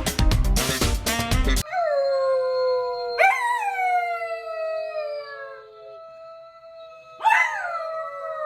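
Upbeat music that cuts off after about a second and a half, then an animal howling: three long calls that each start high and slide down in pitch, the second about three seconds in and the third near the end.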